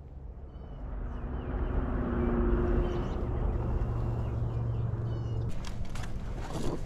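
Steady low hum of road traffic that swells and then stops about five and a half seconds in, with small birds chirping now and then and a few clicks and knocks near the end.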